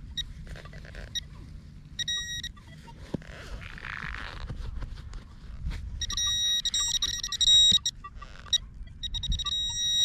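A metal-detecting pinpointer beeping in rapid pulses as it is probed into a dig hole. There are three spells of beeping, the longest about two seconds, with scrapes and knocks of digging in rooty soil in between.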